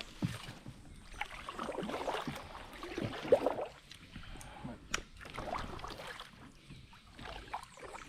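Handling noise aboard a kayak while a hooked fish is landed: irregular rustling and shifting, with a few sharp clicks and knocks.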